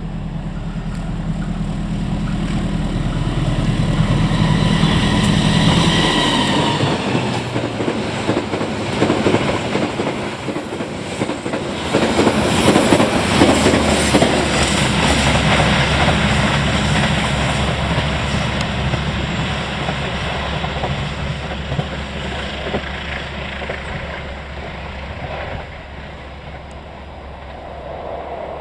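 A diesel train passing close by. Its engine drone builds over the first few seconds, then the wheels clatter over the rail joints, loudest around the middle, before the sound settles into a steady low rumble and fades.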